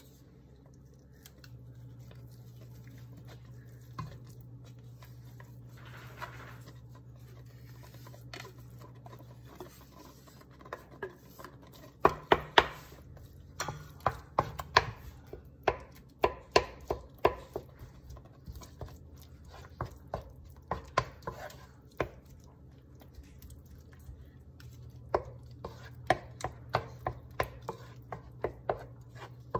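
Wooden spoon knocking against the bottom of a stainless steel pot while chunks of canned tuna are chopped apart and stirred into a thick cream sauce: a quick, irregular run of sharp taps starting about twelve seconds in. Before that, only a low steady hum.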